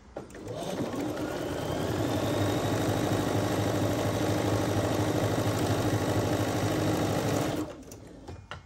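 Computerized sewing machine stitching a seam: the motor and needle speed up over the first second or so, run fast and steady, then stop about a second before the end, followed by a couple of faint clicks.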